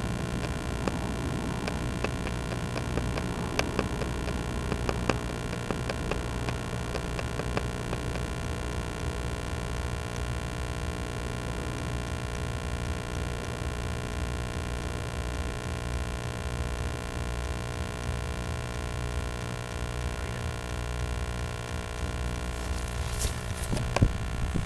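A steady hum made of several fixed tones, with scattered faint ticks in the first half. Near the end come a few sharp clicks and a rustle as the camera is handled.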